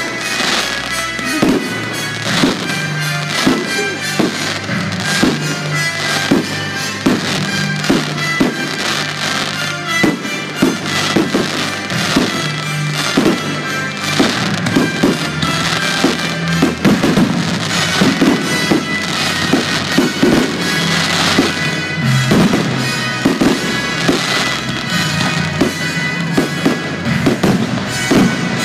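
Aerial firework shells bursting in quick, irregular succession, several bangs a second, over a music soundtrack.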